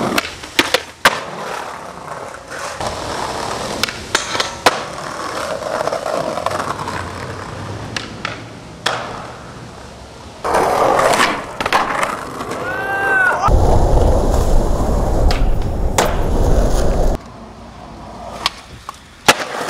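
Skateboards rolling on pavement, with repeated sharp clacks of boards being popped and landed. About two-thirds through comes a few seconds of loud low rumble.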